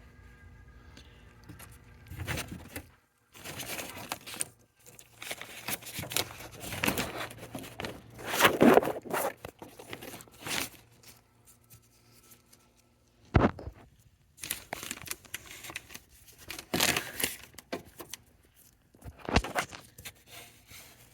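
Plastic door vapor-barrier sheet crinkling and peeling away from its sticky black adhesive as it is handled, in irregular rustling bursts, with a couple of sharp clicks in the second half.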